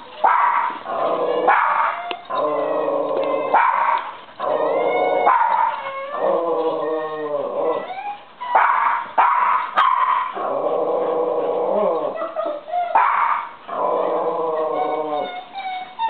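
Two dogs, a Kai Ken and a black Labrador, play-fighting with an almost unbroken stream of drawn-out growling and whining calls, some sliding up or down in pitch. Short, sharp yips and barks break in every second or two.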